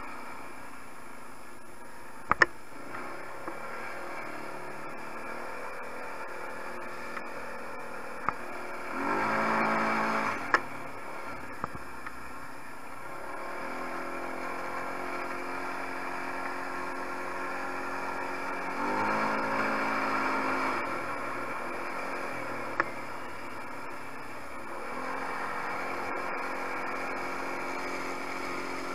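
A 250 cc quad's engine runs while riding, swelling and rising in pitch with throttle twice, about nine and nineteen seconds in, over a steady hiss. A few sharp knocks come from the machine jolting over the track.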